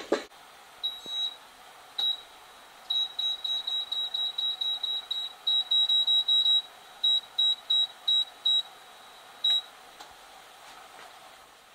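Multicooker's control panel beeping at each button press while the cooking time is set: short, high single beeps, then quick runs of about four a second as the minutes are stepped up, ending with one last beep. A knock at the very start.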